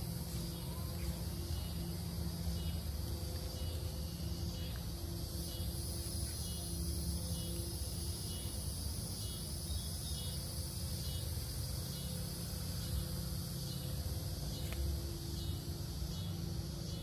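Crickets and other insects chirping steadily at dusk over a steady low hum.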